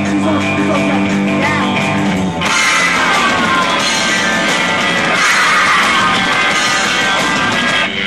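A live rock band playing loud through a club PA. An electric guitar holds a sustained chord with small bends, then about two and a half seconds in the full band crashes in as a dense, noisy wall of sound that breaks off near the end.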